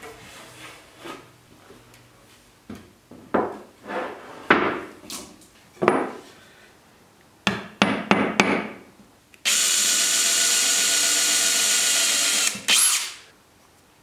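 Short scrapes and taps from an awl marking through a steel figure-8 tabletop fastener. Then a cordless drill runs steadily for about three seconds, with a short second burst just after.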